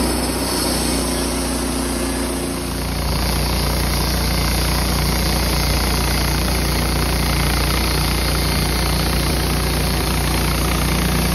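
Wood-Mizer LT15 bandsaw mill running steadily, its engine and band blade sawing lengthwise through a sugar pine log. It gets a little louder about three seconds in.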